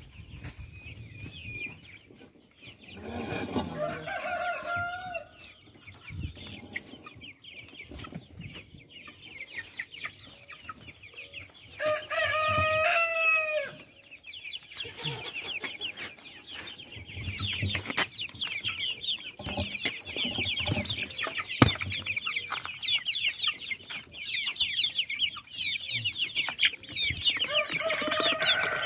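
Flock of hens clucking and chattering as they crowd around feed, the chatter growing dense and continuous from about fifteen seconds in. Louder drawn-out calls stand out around four seconds in, at about twelve seconds (the loudest, about a second and a half long) and again near the end.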